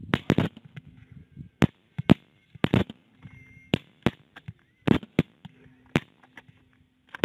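Rifle fired again and again: about a dozen sharp shots over some seven seconds, irregularly spaced, several in quick pairs. These are crop-protection shots at a group of animals through a thermal scope.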